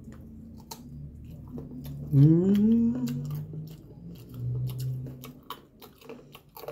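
A vocal moan about two seconds in that rises in pitch and then holds, followed a little later by a lower, steady hum. Soft chewing and lip-smacking clicks go on throughout.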